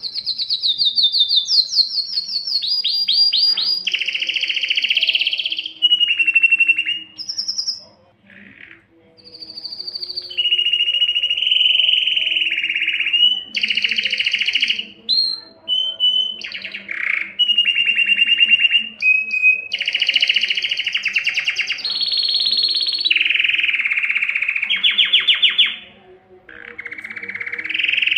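Domestic canary singing a long song of rapid trills and rolls. Each phrase is a fast string of repeated high notes and changes to a new phrase every second or two, with short breaks about eight seconds in and shortly before the end.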